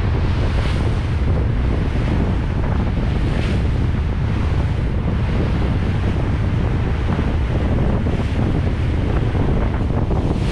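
Wind buffeting the microphone on the bow of a motorboat running at speed, over the steady rush of water along the hull. A hiss of spray swells briefly every few seconds.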